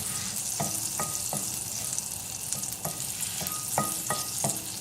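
Butter melting in olive oil, sizzling steadily in a hot frying pan, with a utensil clicking against the pan a dozen or so times at an irregular pace.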